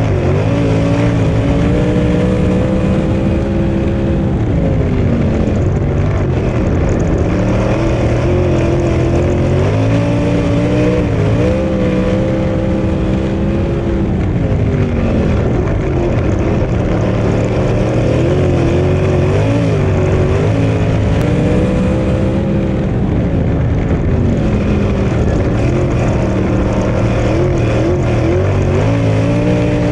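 Winged 410 sprint car's V8 engine at racing speed on a dirt oval, heard from on board the car. Its pitch drops as the driver lifts for each corner and climbs back under full throttle, about every five or six seconds.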